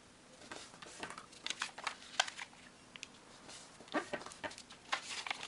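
Sheet of origami paper crackling and rustling as it is folded into quarters and the creases are pressed flat by hand, in two clusters of quick crackles, about a second and a half in and again around four seconds in.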